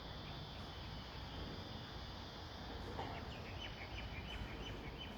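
Small birds chirping: a run of short, high calls repeated several times a second, starting about halfway through, over a steady outdoor background hum.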